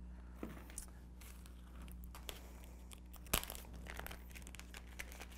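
Plastic packaging crinkling and small metal fishing hardware being handled, with scattered light clicks; the sharpest click comes a little past the middle.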